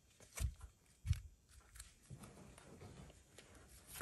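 Faint handling of trading cards as a stack of baseball cards is flipped through by hand: soft sliding and light clicks, with a couple of dull low thumps in the first second or so.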